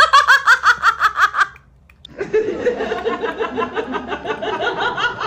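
Human laughter: a quick, high-pitched giggling run that breaks off about a second and a half in, then after a short pause a longer laugh of evenly repeated pulses.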